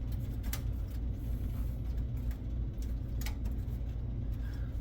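A few light clicks and taps as a rear I/O shield is pressed into place in a PC case, over a steady low hum.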